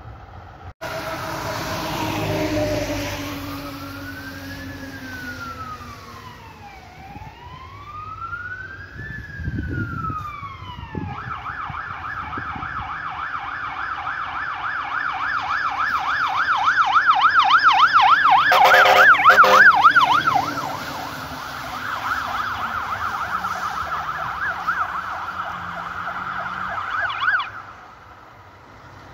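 Fire engine sirens on an emergency run: a slow rising-and-falling wail, then from about a third of the way in a fast warbling yelp that grows louder as a truck approaches. A brief loud blast sounds near the middle, and the siren cuts off sharply near the end.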